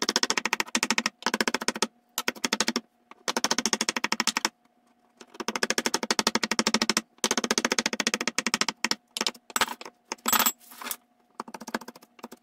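Chef's knife chopping peeled tomatoes fine on a wooden cutting board: fast runs of blade knocks on the board, broken by short pauses.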